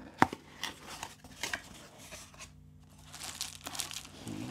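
Cardboard box and its packing being opened and handled by hand: a sharp knock about a quarter second in, scattered taps and clicks, then a denser crinkling rustle in the second half.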